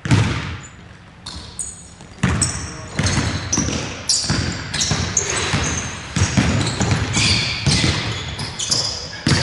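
A basketball bouncing on a hardwood court at irregular intervals, with short high squeaks of sneakers on the floor between bounces, echoing in a large gym.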